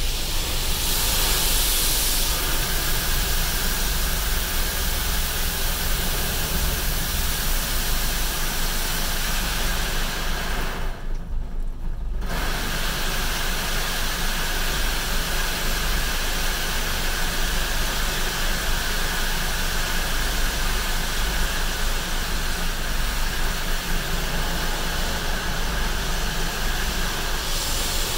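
Steady hiss of an automatic car wash's water spray on the windshield and body, heard from inside the car over a low machine rumble. The spray cuts out for about a second roughly eleven seconds in, then resumes.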